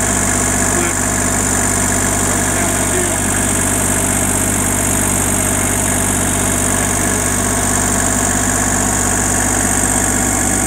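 Kubota compact tractor's diesel engine running steadily, heard from the operator's seat.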